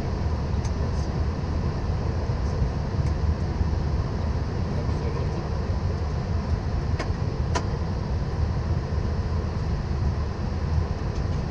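Steady low rumble and rush of cabin noise on a Boeing 777 flight deck, with two sharp clicks a little past halfway.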